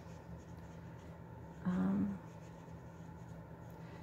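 Faint scratching of a dual-ended marker being stroked across cardstock while colouring in. A short hummed "mm" comes about two seconds in.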